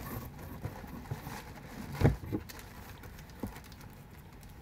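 Items being handled inside a cardboard shipping box: light knocks and rustles of plastic-wrapped packaging, with one louder thump about two seconds in.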